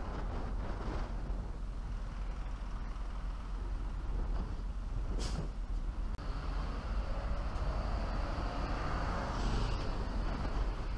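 Wind and road noise on a camera mounted outside a moving truck: a steady rumble. There is a brief sharp sound about five seconds in, and a thin high whine comes in about a second later.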